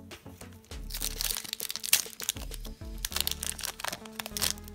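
Foil booster-pack wrapper of Pokémon trading cards crinkling and crackling as it is opened by hand, a dense run of crackles starting about a second in, over background music.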